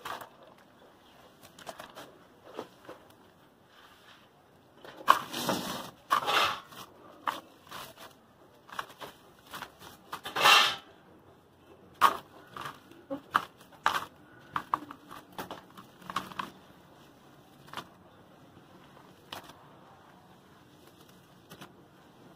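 Hands crumbling a soft sand-cement cylinder in a basin of water: irregular gritty crunches and crackles mixed with wet sloshing. The loudest stretches come about five to six seconds in and again about ten seconds in.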